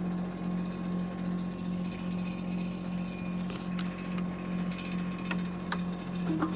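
Shanding 1-ton mini excavator's engine running at a steady pitch, with a few sharp clicks from the machine in the second half.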